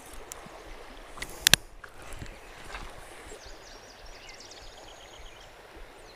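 River current washing over a shallow rocky bed, a steady even rush of water, with two sharp clicks close together about a second and a half in.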